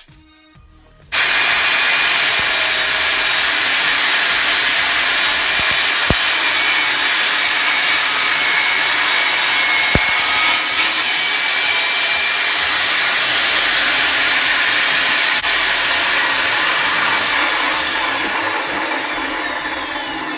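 Power saw ripping a wooden board lengthwise. The saw starts abruptly about a second in and runs steadily through the cut, then winds down with a falling whine near the end.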